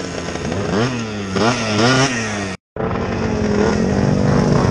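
Scooter engine revving hard while riding, its pitch rising and falling several times. It breaks off abruptly about halfway through, then runs on at a steadier high pitch.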